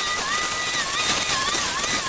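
A small engine-driven power tool running at high speed, a steady whine over a hiss, its pitch dipping briefly and recovering several times.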